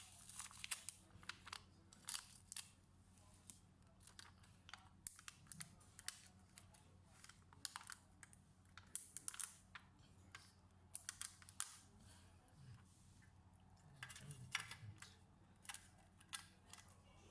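Faint, irregular light clicks and taps, some in quick clusters, from hands working on a laptop.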